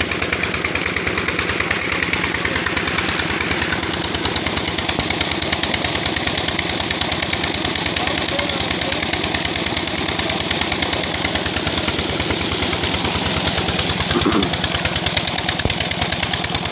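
SD 20 hp Chinese single-cylinder diesel engine running steadily under load, a fast, even chugging as it drives a belt-driven irrigation water pump.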